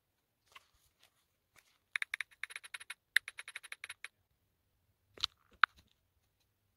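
Key-press clicks from a phone's on-screen keyboard as a search is typed: a quick run of sharp clicks for about two seconds, then two louder taps about a second later.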